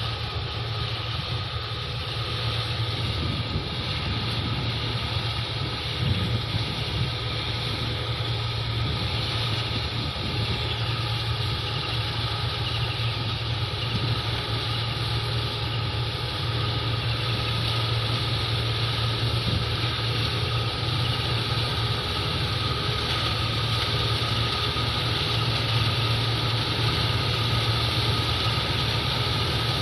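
8070 rice combine harvester running steadily as it cuts standing paddy: a low engine drone with a faint higher whine, growing a little louder as the machine comes closer.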